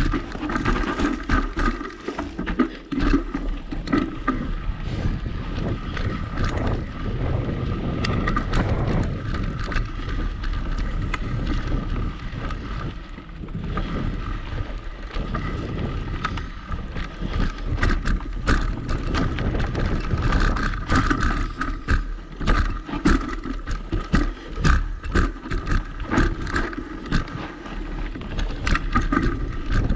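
Mountain bike riding down a dirt singletrack, heard from a camera on the bike or rider: steady rushing wind and tyre noise, with frequent sharp rattles and knocks from the bike over the bumps.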